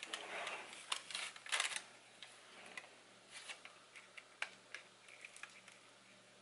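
Disposable plastic piping bag crinkling and rustling in the hands as it is picked up and squeezed. The crinkles are loudest in the first two seconds, then turn into soft, scattered crackles while meringue is piped.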